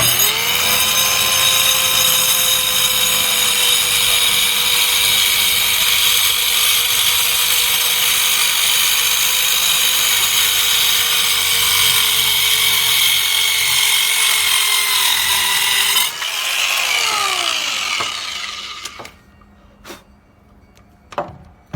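Corded circular saw starting up and cutting through a wooden board. Its motor whine sags slightly in pitch under load for about sixteen seconds. Then the trigger is released and the blade winds down with a falling whine, followed by a few light knocks.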